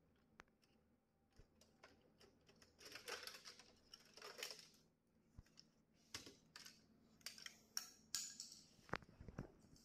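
Faint plastic and metal clicks, knocks and scrapes as a laser printer's fuser assembly is worked loose from the chassis and lifted out, with two longer scraping passes around three and four and a half seconds in and a quick run of sharper clicks near the end.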